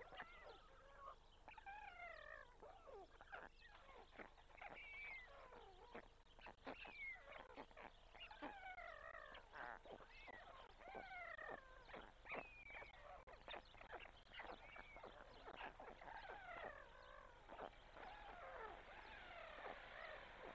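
White stork chicks in the nest giving repeated short begging calls that fall in pitch, mixed with scattered sharp clicks.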